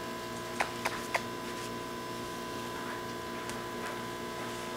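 Steady electrical hum made of several fixed tones, with three quick light clicks about a second in.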